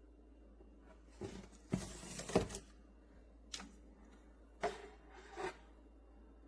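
A few short scraping, rustling sounds of something being handled: a cluster about a second in, then three single ones later.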